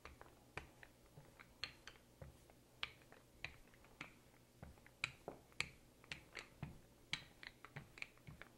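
Wooden rolling pin rolling out pie dough on a floured wooden board: light, irregular clicks and taps, about one or two a second, as the pin's handles knock and the pin is set down and pushed back and forth.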